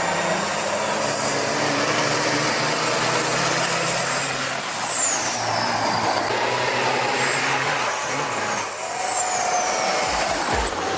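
Heavy trucks running hard on a dirt road: a loud, steady drone of engine and road noise. High whistling sweeps rise and fall over it.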